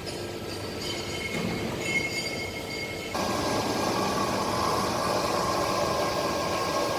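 Hydraulic guillotine shear's machinery running with a steady hum. About three seconds in it turns suddenly louder into a steady drone.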